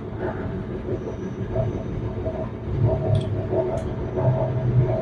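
Low, steady mechanical rumble with a hum, like a motor or engine running, swelling slightly past the middle, with two faint clicks.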